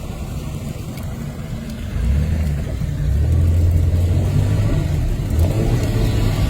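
Four-wheel-drive vehicle driving, its engine working harder about two seconds in as it accelerates, with a deeper, louder rumble from then on.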